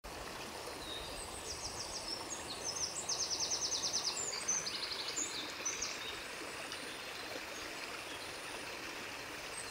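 Outdoor jungle ambience: a steady rushing background noise. From about a second and a half in until about five and a half seconds, high, rapid trilling calls repeat in short runs.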